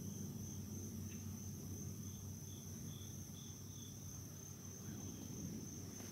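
Late-summer insect chorus: a steady high-pitched trill of crickets, with a row of about five short chirps about two seconds in, over a low steady rumble.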